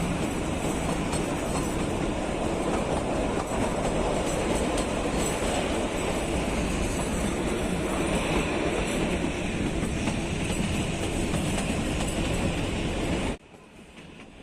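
Narrow-gauge toy train running on the Kalka–Shimla line, heard from the carriage as a steady rumble of wheels on rail with clickety-clack. About a second before the end the sound drops abruptly to a much quieter level.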